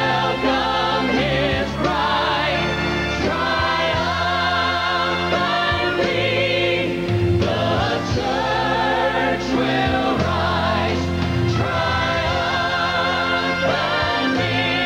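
Gospel choir singing sustained, vibrato-laden lines over instrumental backing in a Christian worship song.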